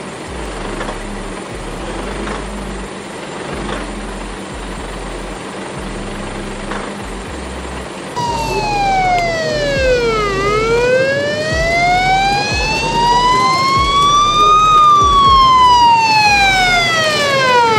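Steady background noise for about eight seconds, then an abrupt cut to a loud ambulance siren in a slow wail. Its pitch falls, climbs slowly and falls again over a few seconds each.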